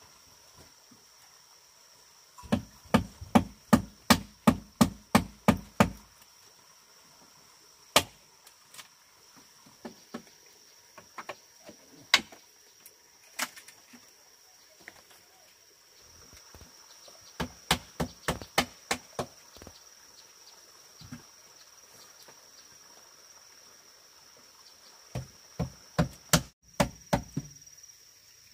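Wooden mallet striking in quick runs of sharp knocks, about three a second, with single knocks between the runs. A steady high insect drone runs underneath.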